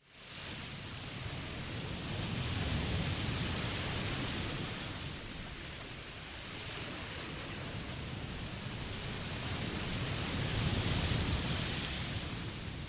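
Steady rushing noise of fast-flowing floodwater, starting abruptly and swelling louder about two seconds in and again near the end.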